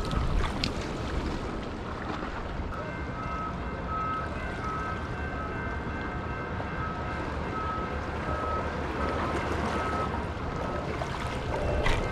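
Wind buffeting the microphone over ocean surf washing against the jetty rocks. From about 3 s to 11 s a high electronic beep repeats about one and a half times a second.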